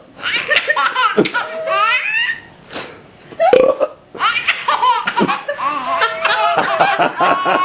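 Baby laughing hard in repeated bursts of belly laughter. There is a short break about halfway, then a longer run of quick, evenly spaced laughs.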